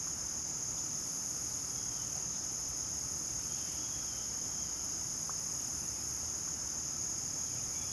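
A steady chorus of crickets: a continuous high trill that does not let up.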